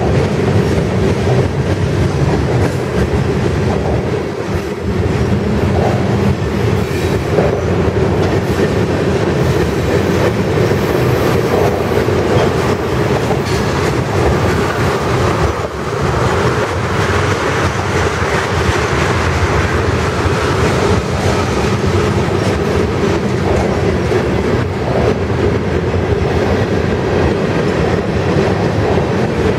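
Freight cars of a long mixed freight train rolling steadily past at trackside: a continuous rumble of steel wheels on rail, with a stream of clicks as the wheels pass over rail joints.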